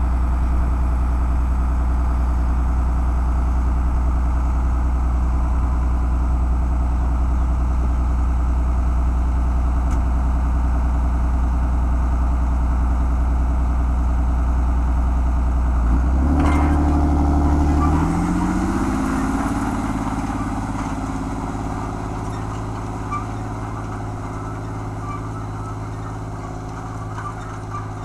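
Large farm tractor's diesel engine idling steadily. About sixteen seconds in there is a clunk and the engine revs up, rising in pitch over a couple of seconds, then it pulls away towing a field cultivator and the sound slowly fades.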